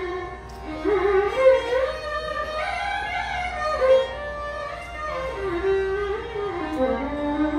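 Two violins playing a Carnatic melody whose pitch slides up and down in ornamented glides, over a steady tanpura drone.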